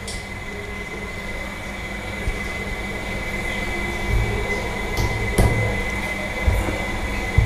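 Portable gas stove running under a steel wok of scrambled eggs: a steady hiss with a low rumble, and a few light clicks and knocks.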